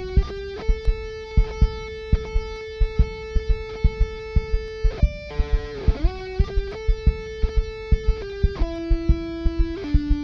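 Intro theme music: an electric guitar holding long sustained notes, with a slide down and back up about halfway through, over a steady drum beat.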